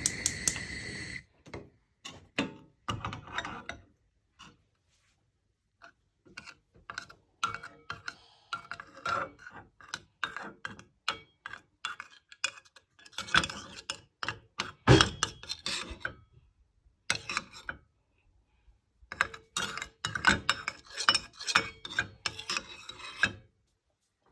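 Clinking and clattering of dishes and utensils being handled, in spells of quick clicks broken by short pauses.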